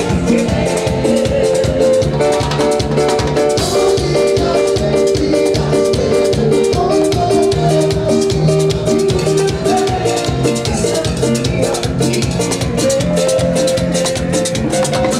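Live band playing an instrumental passage, with a drum kit keeping a fast, steady beat under long held notes.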